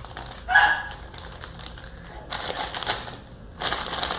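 Thin plastic shopping bag crinkling and rustling in bursts as a cat moves and plays inside it. About half a second in there is one brief, loud, high-pitched vocal sound.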